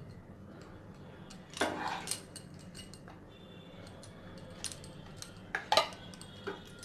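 Flat spatula scraping and knocking against a small glass bowl and a nonstick pan while soft semolina halwa is packed into the bowl. There are scattered clinks and knocks over a faint low hum, with one cluster about a second and a half in and the loudest near the end.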